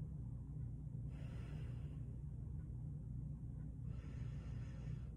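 A woman breathing audibly in a deliberate paradoxical (chest) breathing pattern, with the shoulders rising on the inhale rather than the belly expanding. There are two soft breaths, each about a second long: one about a second in and an inhale near the end. A steady low hum runs underneath.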